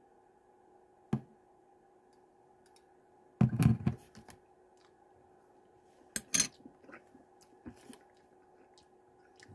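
Light clicks and taps from handling a small hot sauce bottle and a metal spoon, with a louder knock about three and a half seconds in and a couple of sharp clicks near six seconds. A faint steady hum runs underneath.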